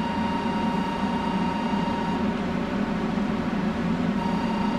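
A JR West 500 series Shinkansen train standing at the platform, its equipment running with a steady hum. A thin high whine cuts out about two seconds in and comes back near the end.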